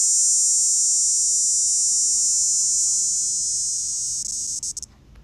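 Recorded cicada song played back: one continuous high, even buzz that fades slightly over its last couple of seconds and stops about five seconds in.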